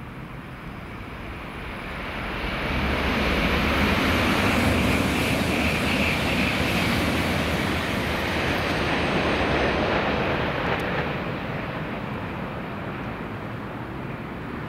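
500 series Shinkansen passing through a station at speed without stopping: a rushing of air and wheel-on-rail noise that builds over a couple of seconds, stays loud for several seconds as the train goes by, then slowly fades as it recedes.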